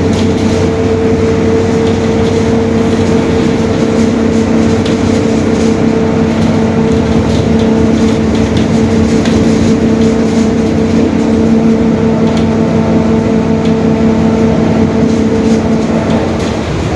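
Mercedes-Benz OF-1721 Bluetec 5 bus under way: its engine runs over road noise and light rattles, and the differential growls with a steady whine.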